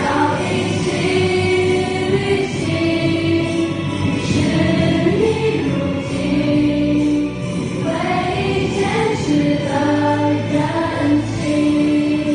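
Live amplified pop song: a woman singing into a microphone over backing music, holding long notes.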